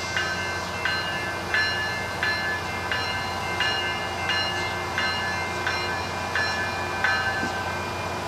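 A railroad bell ringing at a steady pace, roughly three strokes every two seconds, each stroke a clear metallic ring that fades before the next, over a steady low engine hum. The ringing stops about a second before the end.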